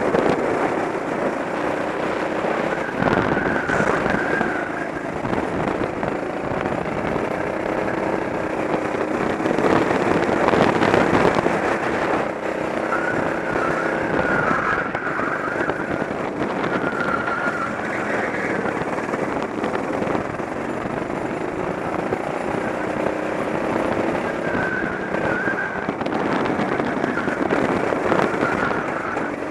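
Rental go-kart's small engine running at speed, its pitch rising and falling as the driver comes on and off the throttle through the corners, heard from the kart itself under a heavy rush of wind and road noise.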